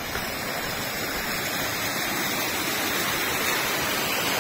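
Steady rush of a mountain waterfall running full in the monsoon, growing slightly louder.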